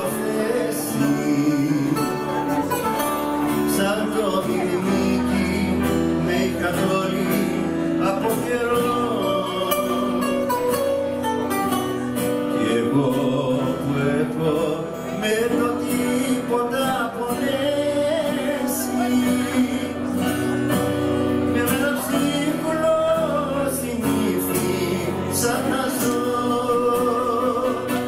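Greek bouzouki played live with a man singing in Greek over it, the music running without a break.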